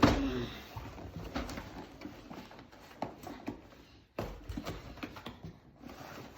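Cardboard Lego box being handled and opened: a sharp knock at the start, then scattered small clicks, knocks and rustles.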